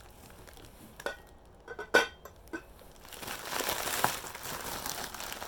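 A brown drip-glaze ceramic dinner plate clinks sharply against a hard surface about two seconds in, after a few lighter knocks. Packing paper then crinkles for a couple of seconds.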